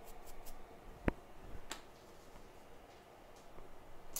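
Small brush scrubbing the iPhone logic board with quick, even strokes, about five a second, that stop about half a second in; then a single sharp knock about a second in and a faint tick.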